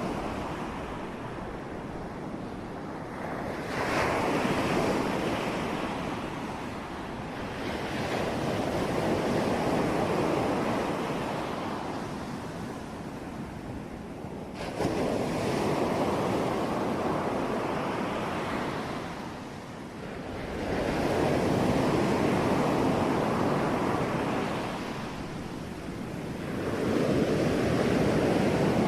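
Sea waves breaking on a shore, one after another: each wave comes in as a rushing swell of surf that rises and falls away over several seconds, about five in all, with a sharper crash at the start of some.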